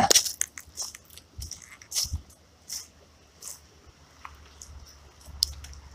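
Footsteps crunching through dry leaf litter, dense at first and then thinning to a few scattered rustles and clicks.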